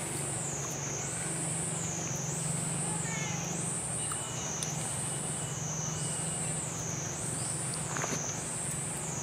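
High-pitched insect chorus, wavering up and down in pitch about every second and a quarter, over a low steady hum.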